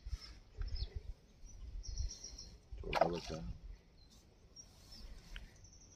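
A hooked mrigal carp splashing and thrashing at the surface as it is pulled in on a hand line, with irregular low thumps and rustles of the line being handled. Birds chirp, and a short cry sounds about halfway through.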